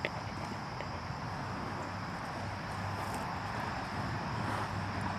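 Outdoor ambience: a steady high insect drone over a low background rumble, with one small click at the very start.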